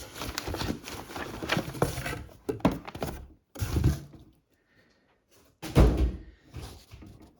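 Rustling and close handling noise from packaging and objects being moved, followed by two dull thunks; the loudest, heaviest thunk comes about six seconds in.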